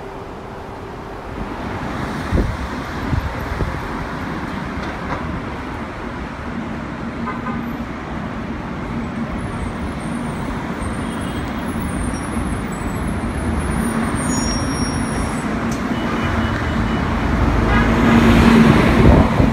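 City street traffic with bus engines running and a steady engine hum. A bus passes close by near the end, the loudest part.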